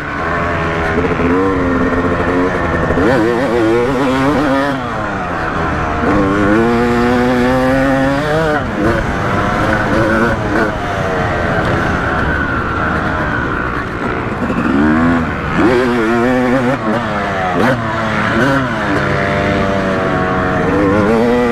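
Yamaha YZ250's single-cylinder two-stroke engine under hard riding, its pitch climbing and dropping again and again as the throttle is opened and closed.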